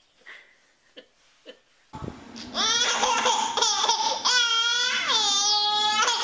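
Faint short sounds at first, then from about two seconds in a baby's loud, high squeals and drawn-out wails, with two long held cries near the end.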